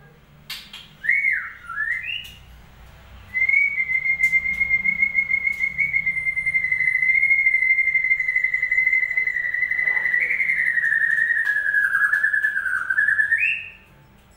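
Bird-lure whistling for a white-rumped shama that has gone quiet: a few short sweeping whistled notes, then one long trilled whistle held for about ten seconds that dips slightly and rises at the end before cutting off.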